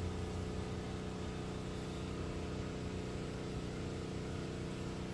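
A neighbour's lawn mower engine running steadily in the background, a constant hum with no change in speed.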